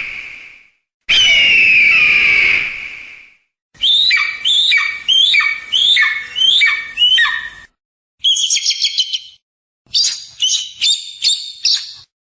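Eagle calls, a sequence of separate recordings. First comes one long, slightly falling scream. Then about eight descending piping whistles follow one after another, then a short chatter and a quick run of sharp chirping calls.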